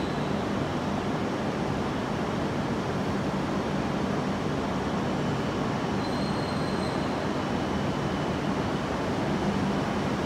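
E6 series Komachi shinkansen creeping slowly in to couple with the Hayabusa, its nose coupler exposed: a steady running noise with a low hum. There is a faint, brief high squeal about six seconds in.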